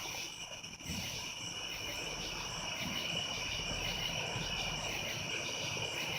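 A steady chorus of night insects, crickets trilling in steady high-pitched bands, over a faint low background rumble.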